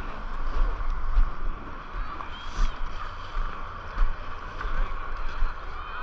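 Skis sliding and scraping over packed, tracked snow in a steady swish, with irregular low thumps underneath.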